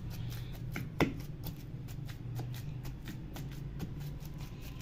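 Wooden masher pounding and mashing boiled chana dal and potato in a pot: a quick run of soft knocks and squishes, with one louder knock about a second in.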